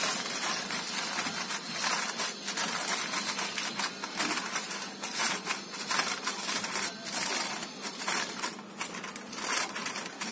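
Aluminium foil crinkling and crackling in irregular bursts as hands press and crimp it down around the rim of a round steel tin, sealing the tin for steaming.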